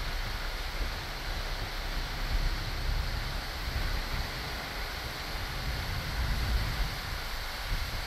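Steady rumble and hiss of a moving car, tyre and wind noise heard from inside the cabin, with the low end fluttering unevenly.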